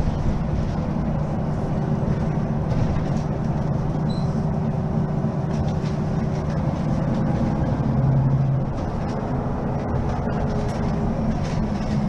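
Mercedes-Benz Citaro facelift city bus running, a steady diesel drone with tones whose pitch shifts now and then.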